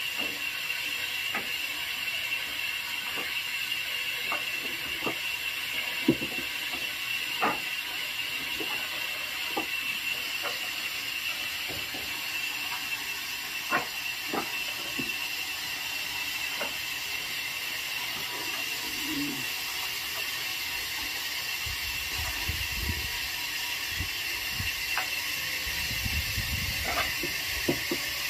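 Cut wooden blocks knocking and clacking as they are handed up and laid onto a stacked load, in irregular single knocks every second or two, over a steady hiss. A low rumble comes in during the last few seconds.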